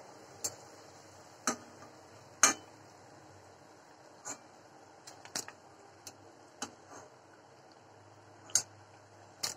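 Steel spatula clinking and tapping against a steel kadai while lifting fried pakoras out of the oil: about ten short, sharp clicks at irregular intervals, the loudest about two and a half seconds in and near the end.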